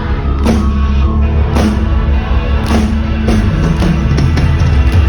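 A live band playing loud music: a drum kit hits a strong beat about once a second over heavy bass.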